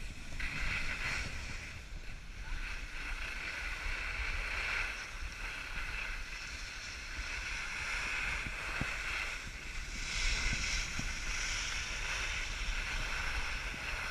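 Skis hissing and scraping over packed snow during a downhill run, swelling and fading several times, over a steady rumble of wind on the microphone.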